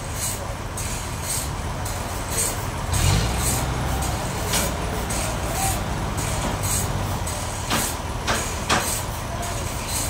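Engine running steadily, rising in level about three seconds in, with a few sharp knocks near the end.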